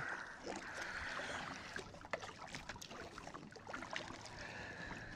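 Kayak paddle strokes through calm water, with the swish of the blades and small drips and splashes off them.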